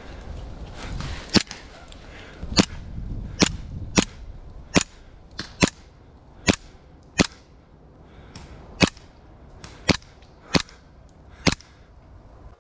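Airsoft pistols firing single shots: about a dozen sharp pops at irregular intervals, roughly one every half second to a second and a half.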